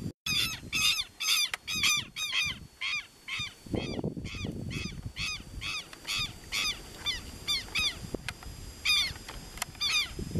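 Southern lapwings calling over and over as a pair flies overhead: a quick run of calls in the first two seconds, then about two calls a second.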